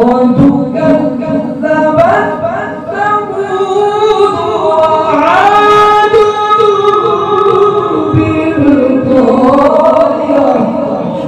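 A man reciting the Quran in a slow, melodic tajweed style, holding long ornamented notes. The voice climbs to a higher held note about five seconds in.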